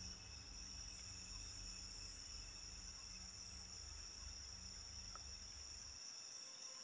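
Faint, steady chorus of night insects, a continuous high shrill, over a low rumble that stops shortly before the end. One faint tick a little after five seconds.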